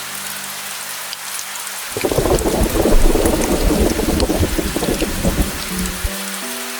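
Steady rain hissing, with scattered drops ticking. About two seconds in, a roll of thunder rumbles for around four seconds. Soft background music tones come before and after it.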